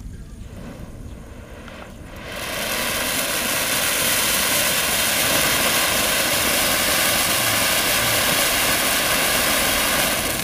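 Ground fountain firework (anar) catching about two seconds in and spraying sparks with a loud, steady hiss.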